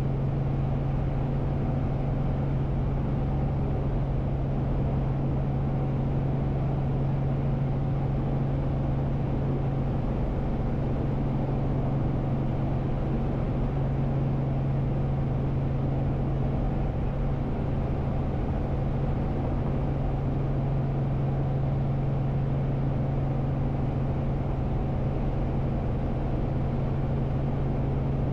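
Robinson R44 Raven II helicopter in a hover, heard inside the cabin: its rotor and six-cylinder Lycoming piston engine run with a steady low hum and an even rushing noise.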